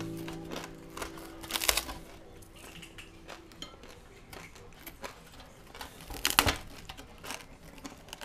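A closing music chord fades out. Then come scattered light clicks and clinks of small hard objects, with two louder clatters, one near two seconds in and one near six and a half seconds in.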